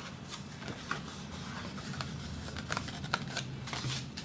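Red cardstock being handled and folded by hand: irregular light paper rustles, scrapes and small taps as the creased card is pressed flat on a wooden tabletop, over a steady low hum.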